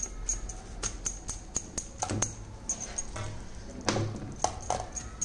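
Steel spatula tapping and scraping on a steel plate while spreading sticky jaggery-coated puffed rice: an irregular run of light clicks with a couple of short scrapes.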